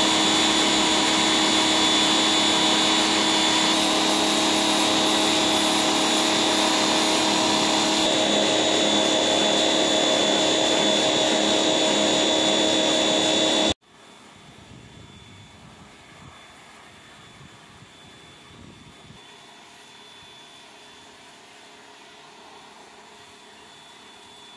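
Electric pressure washer running steadily, its motor and pump whining under the hiss of the water jet on the stones. About halfway through it cuts off abruptly, leaving only a much fainter steady hum.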